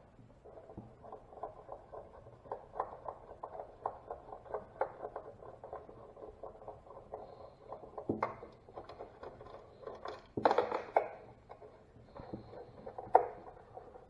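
Hand screwdriver backing out the Phillips screws that hold a glove box door to its hinge: a long run of small, even clicks, about three or four a second. A few louder knocks and clatters follow in the second half as the screws and door are handled.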